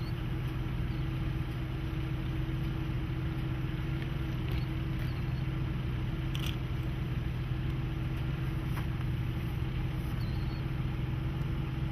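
A vehicle engine idling steadily, an even low hum, with one faint click about six and a half seconds in.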